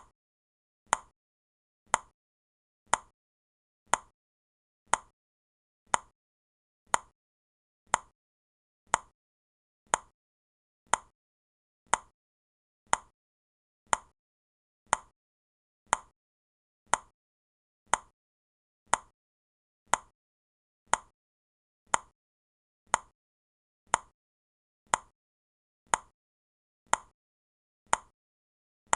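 Countdown timer ticking like a clock: one short, sharp tick every second, evenly spaced, with silence between the ticks.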